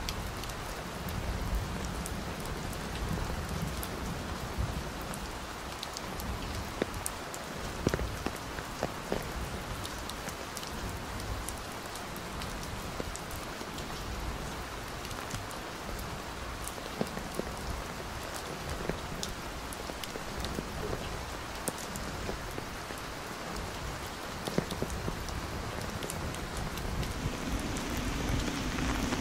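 Steady heavy rain falling, with many separate drops ticking close by.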